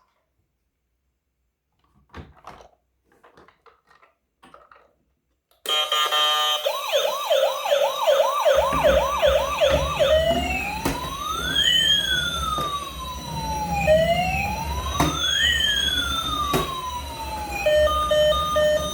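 Electronic siren of a toy emergency vehicle, starting suddenly after a few faint handling clicks. It gives a fast yelp of about three sweeps a second, then a slower wail rising and falling every couple of seconds, and switches to steady beeping near the end, with a low rumble underneath.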